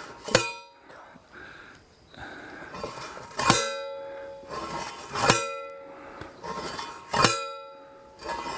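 A metal post driver clanging down on top of a fence post, four ringing strikes about two seconds apart, driving the post into hard ground.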